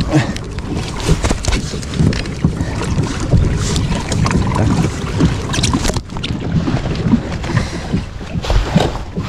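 Kayak on open water: irregular paddle splashes and water slapping and knocking against the hull, with wind buffeting the microphone.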